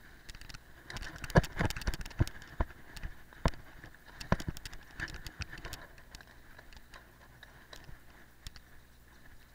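Cyclocross bike jolting over rough frozen ground: a run of sharp knocks and clatters, loudest about a second and a half in, that die away after about six seconds, over a faint steady running noise.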